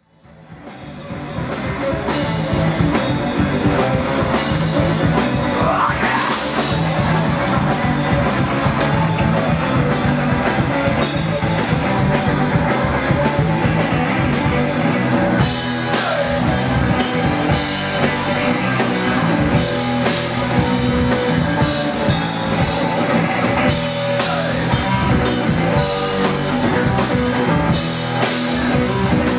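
Live rock band playing electric guitars and a drum kit, fading in from silence over the first couple of seconds and then running on loud and dense.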